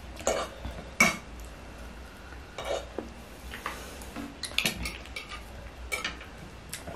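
Fork and spoon clinking and scraping against a plate of noodles, with the crinkle of plastic casings being peeled off sausages. The sounds come as scattered short clicks and rustles, the sharpest clink about a second in.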